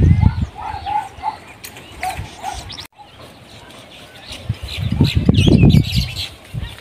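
Birds chirping, with loud low rumbling bursts near the start and again about five seconds in.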